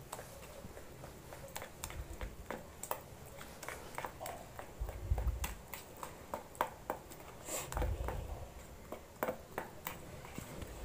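Wire whisk beating thick cake batter in a bowl, its wires clicking irregularly against the bowl's side several times a second. A few dull low thumps come about two, five and eight seconds in.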